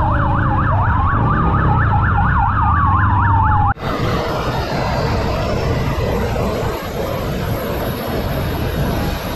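Police sirens: a fast yelp and a slower rising-and-falling wail sounding together. They cut off abruptly about a third of the way in. Steady rushing wind and road noise from a moving car follows.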